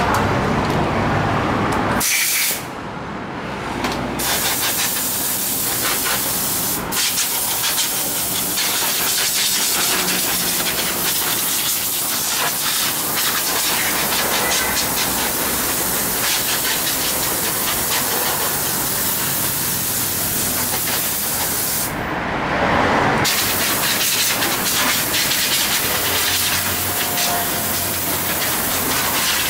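Compressed-air hose blowing dust out of a desktop computer case and off its case fans: a steady loud hiss of rushing air, broken off briefly about two seconds in and again about twenty-two seconds in.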